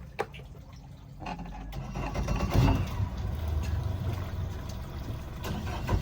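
An engine running with a low rumble and rushing wind noise, building up from about a second in and loud from about two seconds in. A single click comes just before it.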